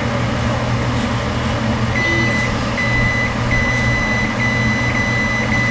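Microwave oven's electronic beeper sounding a high steady tone in several long beeps with short breaks, starting about two seconds in, over a steady low hum.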